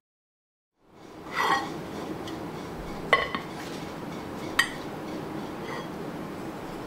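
Metal pudding mould knocking against a stone countertop and a ceramic plate as a caramel bread pudding is turned out: a short scrape about a second and a half in, then two sharp clinks.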